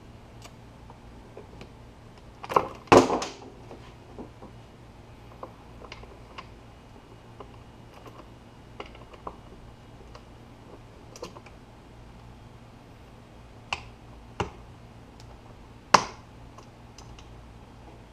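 Sharp clicks and knocks at irregular intervals over a low steady hum. The loudest is a cluster about three seconds in, with two more knocks past the middle and a single strong one near the end.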